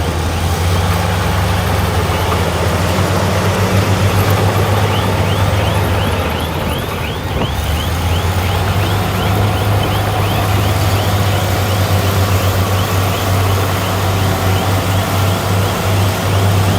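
Heavy diesel earthmoving machinery running under load with a steady low engine drone. From about five seconds in, a high squeak repeats about three times a second.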